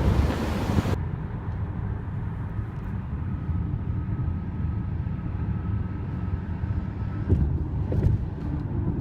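Steady low rumble of a moving vehicle, road and engine noise, with a couple of short knocks near the end.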